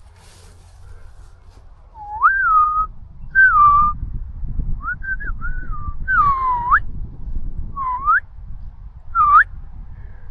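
Alpaca humming repeatedly: about seven short, high calls that glide up and down, some rising at the end. Frequent humming like this is a sign of an agitated or stressed alpaca.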